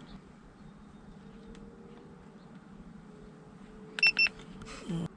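Two short, high electronic beeps from a handheld OBD-II scan tool about four seconds in, typical of its key presses while clearing the engine's trouble codes, over a faint steady hum; a brief rustle follows near the end.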